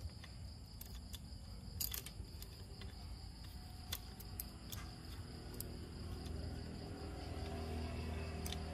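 A few faint metallic clicks as a cam sprocket and cam chain are fitted by hand onto the camshaft of a Honda Lead scooter engine, over a steady high chirring of crickets.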